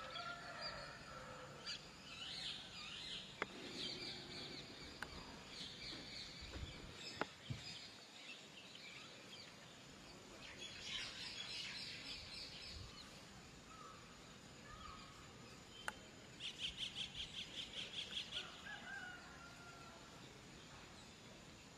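Small birds chirping and twittering, with a fast pulsed trill of about five notes a second about three-quarters of the way in, and a few sharp clicks.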